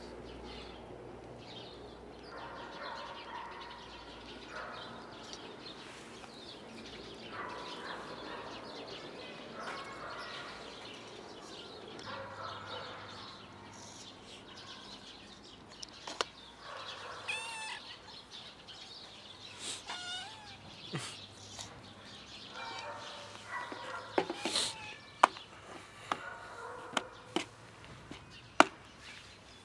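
Outdoor ambience with birds chirping now and then. Near the end come a few sharp plastic clicks as the snap-lid of a plastic food container is unclipped.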